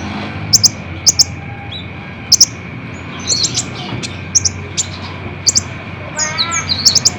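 Kolibri ninja sunbird song: short, sharp, high-pitched chips repeated about twice a second, often in quick pairs, with a brief rapid run of falling notes about six seconds in. A faint steady high hum runs under it.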